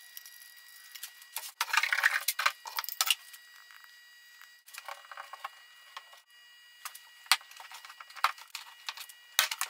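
Caulking gun and wooden batten being handled as construction adhesive is laid on and the strip is pressed into place: scattered rustling, scraping and light clicks, busiest about one and a half to three seconds in and again near the end.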